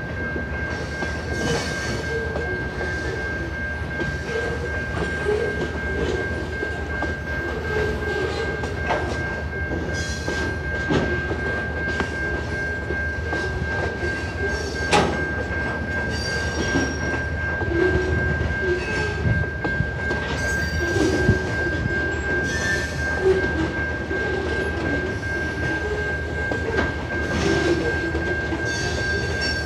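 Freight cars of a CN train rolling past a grade crossing: a steady rumble of wheels on rail with clacking over the joints and occasional sharp knocks. A steady high-pitched tone runs beneath it throughout.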